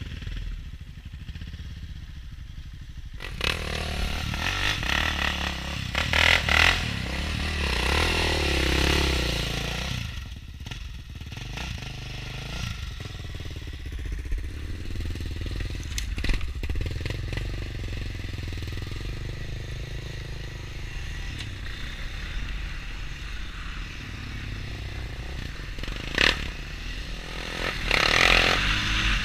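Quad engines running: a utility ATV's engine under the camera and a Yamaha Raptor sport quad close by. Louder from about three to ten seconds in, two sharp knocks later on, and rising again near the end as the quads ride off down the trail.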